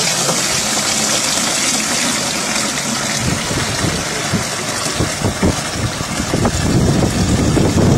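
Water gushing from a metal pipe spout into a plastic jerrycan: a steady rushing splash, with a low rumble building near the end.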